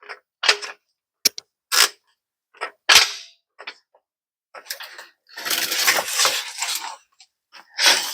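Sharp metallic clanks and knocks at irregular spacing from suspension and tool work on a van's rear axle, with a longer scraping rattle about five seconds in.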